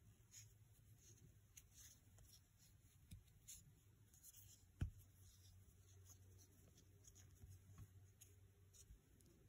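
Faint scratching and rustling of a metal crochet hook pulling yarn through single-crochet stitches, over a low steady hum, with one sharp click about halfway through.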